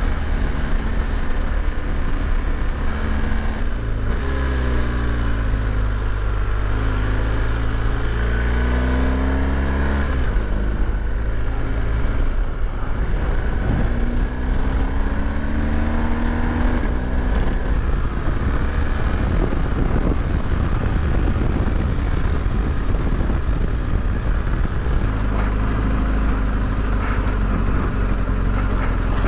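BMW R 1250 GS boxer-twin engine running under way, its revs dropping and climbing several times with the throttle, over a steady rush of wind and dirt-road noise.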